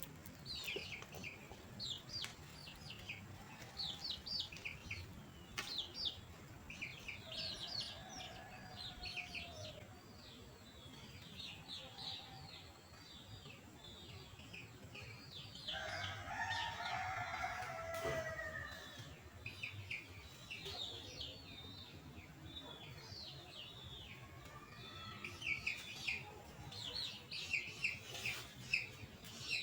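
Small birds chirping in quick, high, repeated notes. About halfway through, a rooster crows once, a lower call that lasts about three seconds.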